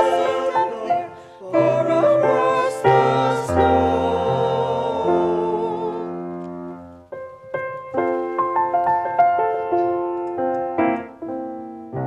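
Small vocal ensemble singing a Christmas carol with piano accompaniment. The voices hold a long note that fades out about six seconds in, and the piano then plays on alone as an interlude.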